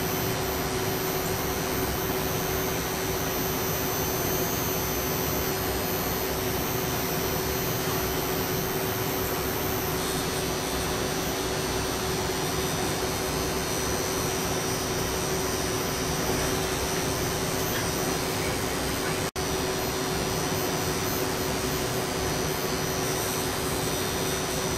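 Steady whirring hiss with a constant low hum tone, the running noise of electronic lab equipment and its cooling fans, dropping out for an instant about 19 seconds in.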